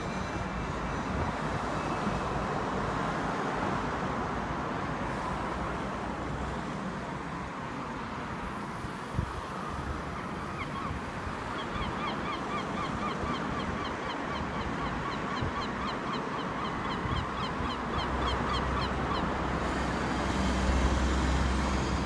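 Steady road traffic noise, with a gull calling in a fast run of short repeated notes, about four or five a second, from about ten seconds in until near the end, as two gulls tug at each other.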